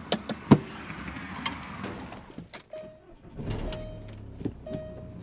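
A few sharp clicks and knocks at the fuel filler of a Volkswagen Beetle, then inside the car a warning chime dings about once a second while keys jingle.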